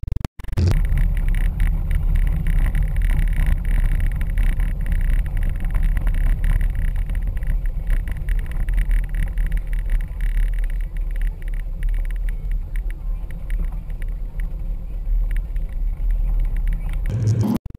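Cabin noise inside a Ford Windstar minivan driving on a dirt road: a steady low rumble of engine and tyres. It cuts in abruptly just after the start and cuts off abruptly just before the end.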